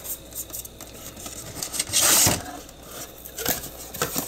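Hands opening a cardboard product box: light taps and rubbing of the cardboard, with one louder scrape about two seconds in.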